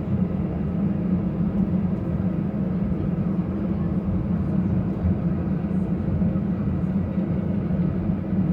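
Steady cabin drone inside an Airbus A319 on the ground after landing, with a constant low hum.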